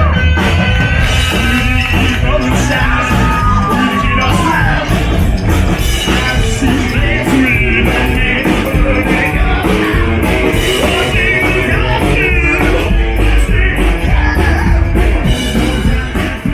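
Live rock band playing loudly, with bending, sliding lead lines in the first few seconds.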